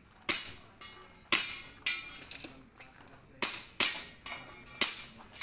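Airsoft pistol firing in quick strings: about four sharp shots in the first two seconds, a pause, then about four more from about three and a half seconds in, each with a short ringing tail.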